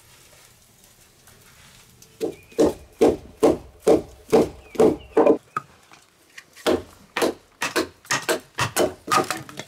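A wooden baton striking the spine of a knife blade to split kindling sticks: hollow wooden knocks in two runs of about eight strokes each, two to three a second, the first run starting about two seconds in.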